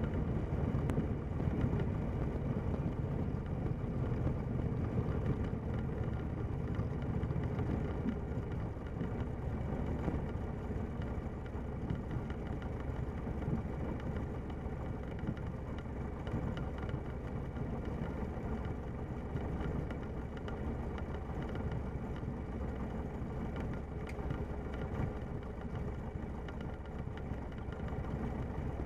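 Light aircraft's piston engine running steadily at low power, its propeller turning slowly, as the plane rolls out and taxis after landing; the sound eases slightly toward the end.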